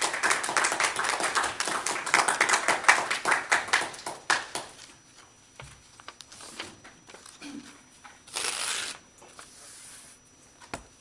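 A small audience applauding, the clapping dying away about four and a half seconds in. Then sparse paper rustling and handling noises at a lectern, with a louder rustle of about half a second near the end.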